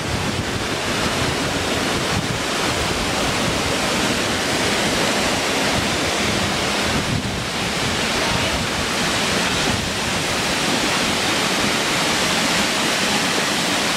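Virginia Falls, a tall waterfall pouring down a rock cliff onto the ledges and shallow pool below, making a steady rush of falling water.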